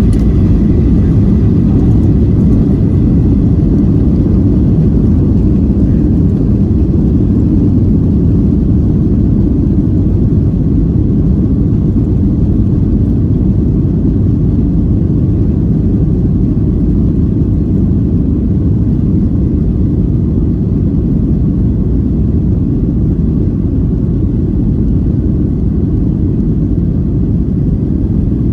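Jet airliner's engines at takeoff power, heard from inside the passenger cabin: a loud, steady low rumble that eases off only slightly.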